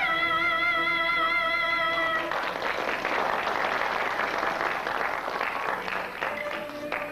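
A Peking opera singer holds a long, wavering final note of an erhuang aria; about two seconds in the note ends and the audience breaks into applause for about four seconds, and near the end the opera band's strings take up the melody again.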